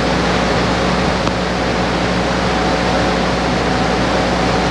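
Steady background hiss with a low, even hum, like ventilation or air-conditioning noise in a large room.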